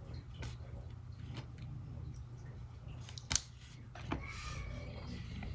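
Small clicks and taps of tools handling the iPod's tiny parts, with one sharper click about three and a half seconds in, over a steady low hum.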